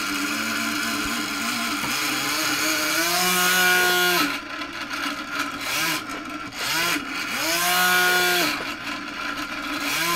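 Small motor and propeller on a PID-controlled pendulum running loud and jittery, its pitch rising and falling twice for about a second each time. The controller has derivative gain set very high with derivative band limiting off, so the drive is noisy and unsettled.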